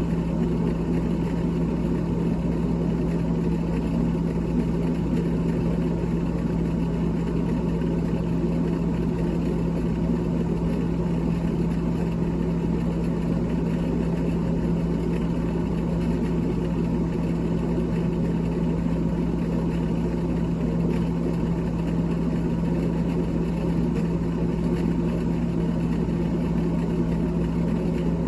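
Small electric motor running steadily, humming with one constant low tone over a light whir.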